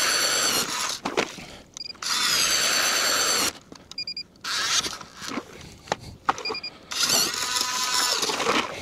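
Powered ice auger boring through lake ice: the motor whines in four bursts of about one to one and a half seconds each, pitch sagging slightly under load, with short quiet pauses and a few sharp knocks between them.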